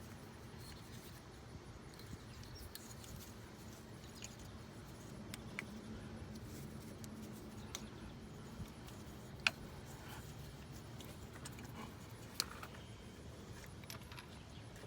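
Faint, scattered clicks and clinks of hand tools and metal parts being handled, with a few sharper ticks among them.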